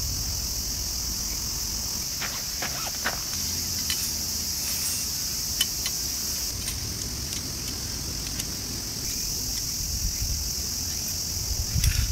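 A steady, high-pitched insect chorus, with scattered light clicks and taps as the metal parts of a folding grill are handled.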